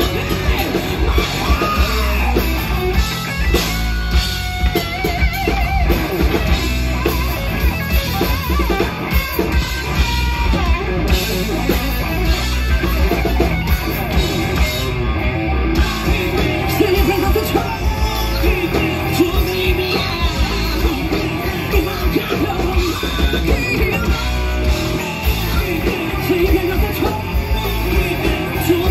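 Live rock band playing loud: electric guitar, electric bass and drum kit, with a woman's lead vocal singing over them.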